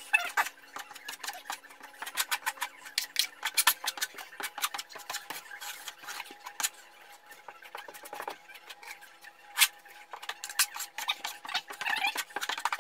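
Steel drywall taping knife scraping joint compound against a metal mud pan and spreading it on drywall: a rapid, irregular run of scrapes and sharp clicks, over a faint steady hum.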